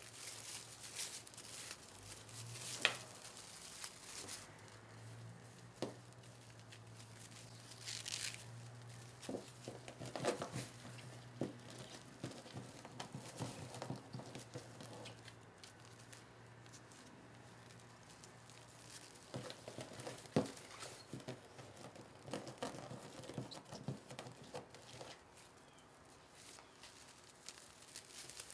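Stiff polyester-polypropylene fabric mesh rustling and crinkling as hands unroll it and pinch it into ruffles, with scattered light clicks and taps.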